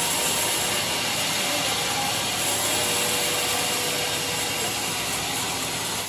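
Band sawmill blade running lengthwise through a large trembesi (rain tree) log, a steady hiss of the blade in the wood.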